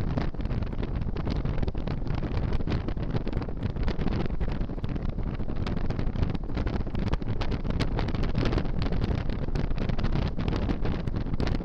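Wind buffeting the microphone of a motorcycle riding at road speed: a steady, dense rushing noise, heaviest in the low end, mixed with the bike's running noise.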